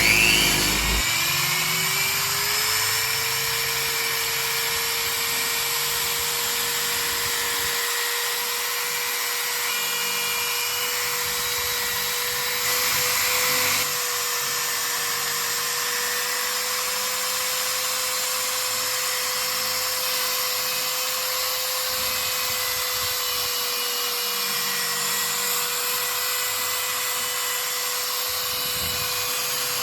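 Small electric power tool spinning up with a rising whine about a second in, then running at a steady pitch with a high hiss. It gets briefly louder just before the halfway point.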